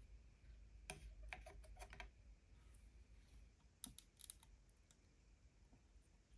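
Small plastic clicks and taps as a plastic model fuel tank is handled and fitted onto a 1/12-scale motorcycle model's frame: a quick run of clicks about a second in and another just before the tank goes on, about four seconds in.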